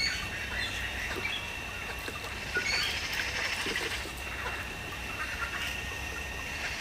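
Pet bird chirping in short scattered calls while bathing, over a light pattering and a faint steady high tone.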